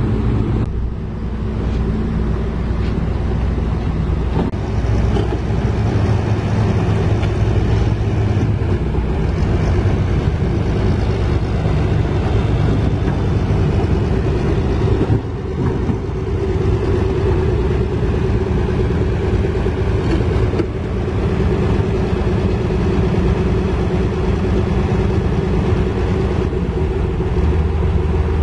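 Heavy diesel engine of construction machinery running steadily under load, with a few brief dips in level and a shift in its low note near the end.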